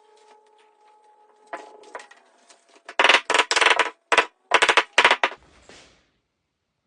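A power tool run in six or seven short bursts of fast rattling, starting about three seconds in, after a few faint ticks.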